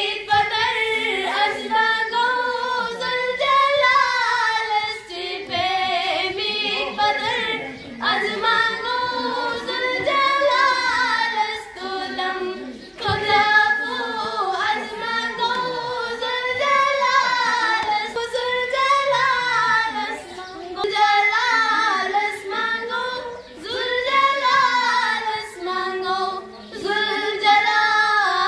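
A young girl singing solo, a melody in long wavering phrases with short pauses for breath between them.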